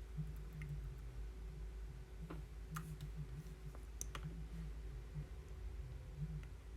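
A handful of scattered, light clicks, about six, irregularly spaced, over a low steady background hum.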